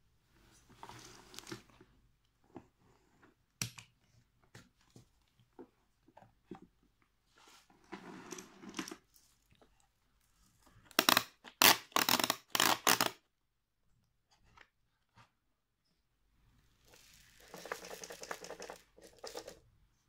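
The plastic body of a Hitachi CV-7405 Stowaway cylinder vacuum cleaner is handled while switched off, as it is opened and its dusty filter is pulled out. Rustling and scraping of plastic and the dust filter come in several spells, with a quick run of sharp plastic clacks about halfway through, the loudest part.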